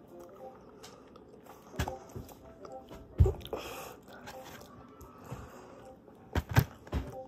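A person biting and chewing a soft cookie close to the microphone, with a few sharp knocks, the loudest about three seconds in and a quick cluster near the end.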